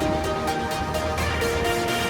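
Electronic background music with a steady beat and a synth melody.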